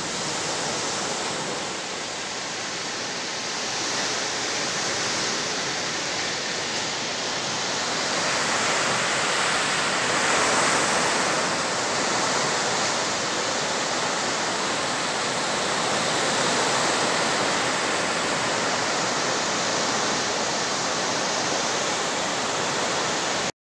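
Heavy rain pouring down in strong wind: a dense, steady rushing hiss that swells a little now and then and cuts off abruptly just before the end.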